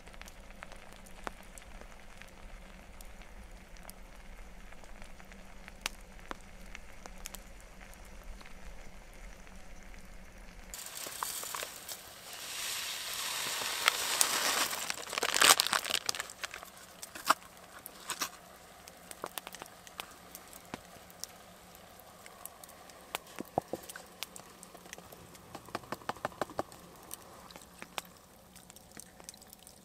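Wood fire crackling with scattered sharp pops. About halfway through, a louder sizzling hiss swells for a few seconds and dies away, and the crackling goes on with a quick run of pops near the end.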